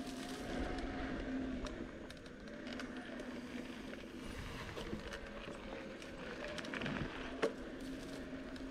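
Bicycle rolling along a sandy dirt trail: tyres on the sand and rattles over bumps, with a steady hum that wavers a little in pitch, and a sharp knock about seven and a half seconds in.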